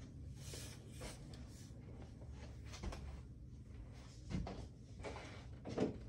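Quiet room with a faint low hum and a few soft knocks, the loudest two about four and a half and six seconds in.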